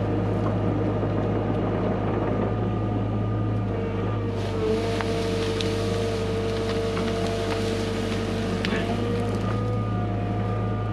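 Hyundai HX85A excavator's diesel engine running steadily, with a steady whine and more hiss coming in about four seconds in as the machine works, and a few light knocks.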